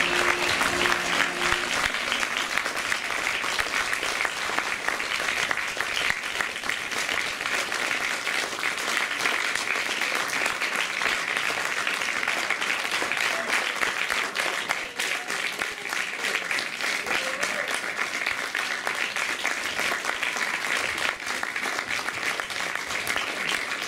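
Audience applauding, a dense steady clapping that fills the whole stretch; the last held notes of music die away in the first second and a half.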